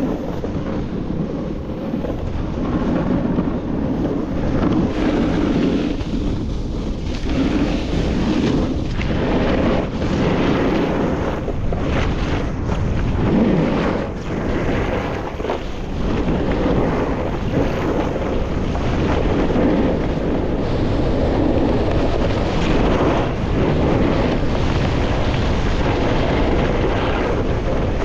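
Snowboard riding down a groomed run of soft snow: a steady scraping rush of the board on the snow mixed with wind buffeting the camera microphone, rising and falling in waves.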